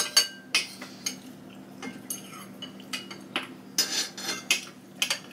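Metal forks and spoons clinking and scraping against ceramic bowls and plates while eating. A few sharp clinks come just after the start and a busier spell of scraping about four seconds in, over a faint steady low hum.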